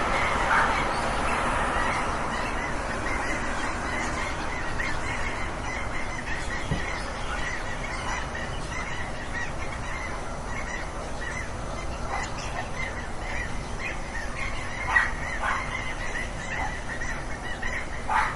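A flock of geese honking: many short overlapping calls in a continuous chorus, with a few louder honks standing out about fifteen seconds in and near the end.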